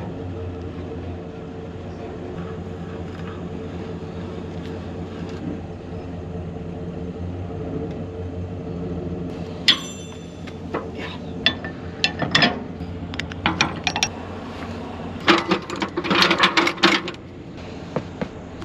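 A vehicle engine running steadily, joined about ten seconds in by scattered metallic clinks and clanks that come thickest near the end.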